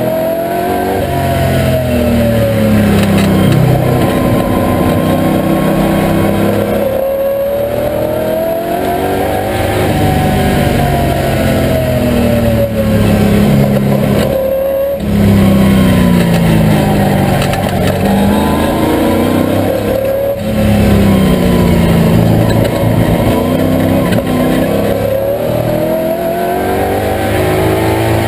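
TVR Tuscan's V8 engine at racing speed, heard from inside the cabin, its note climbing and falling over and over as it accelerates and slows through the corners. The sound breaks off briefly three times.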